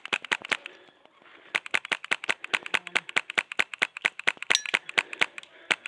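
Airsoft guns firing in rapid strings of sharp snaps, about seven shots a second: a short burst, a pause of under a second, then a long run of fire that breaks briefly near the end.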